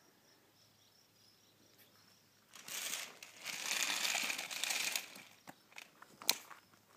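Rustling, crinkling noise lasting about two and a half seconds, starting about two and a half seconds in, with a single sharp click near the end.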